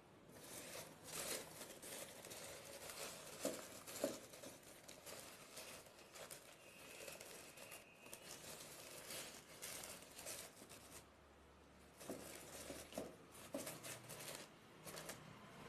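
Green chillies being put into a tissue-paper-lined plastic container: faint, irregular rustling of paper with soft taps and clicks, pausing briefly about two-thirds of the way through.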